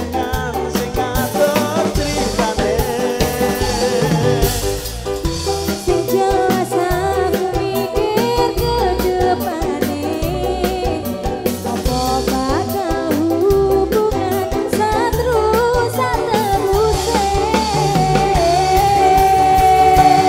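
Live dangdut koplo band playing over a PA sound system, kendang drums keeping a steady beat, with a woman singing the lead into a microphone.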